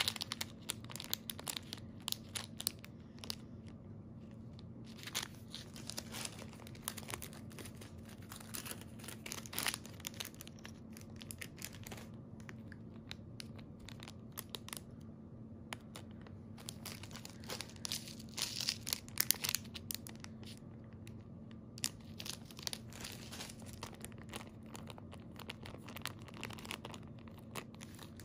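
Clear plastic jewelry bags crinkling and rustling as they are handled, in irregular crackles with a few short pauses.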